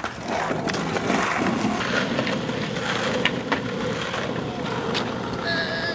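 Small hard wheels rolling over skatepark concrete: a steady grinding rumble with a few sharp clacks.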